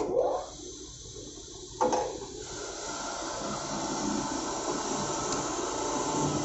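Bench grinder's electric motor switched on and spinning up, a sharp knock just under two seconds in, then a steady scraping whir as the threaded end of a steel fuel oil high-pressure pipe is held against the wire-brush wheel to buff the threads clean.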